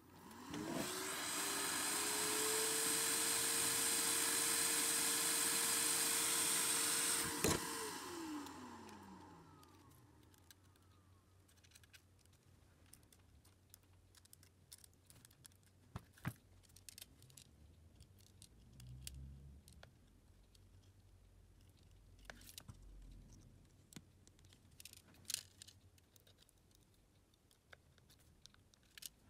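A small electric motor switches on and spins up to a steady whirring hum, runs for about six seconds, then clicks off and winds down in falling pitch. Faint scattered clicks of small tools follow.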